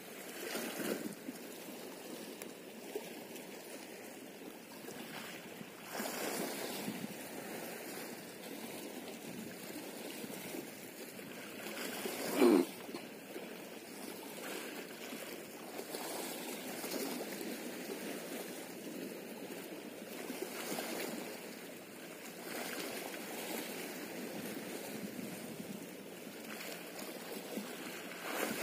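Small sea waves lapping and splashing against a rocky shore, the wash swelling every few seconds, with one short, much louder burst about halfway through.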